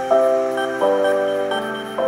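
Music: sustained chords, each held for about two thirds of a second before moving to the next.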